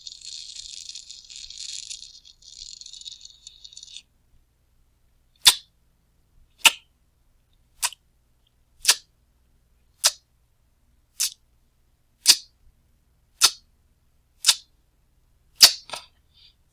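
A lighter's gas hissing as it burns for about four seconds, cutting off suddenly; then ten sharp clicks of the lighter being struck, about one a second.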